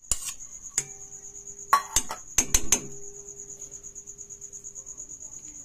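Steel spoon clinking and scraping against steel bowls while scooping out yogurt: a scatter of sharp clinks in the first three seconds, some leaving the bowl ringing briefly.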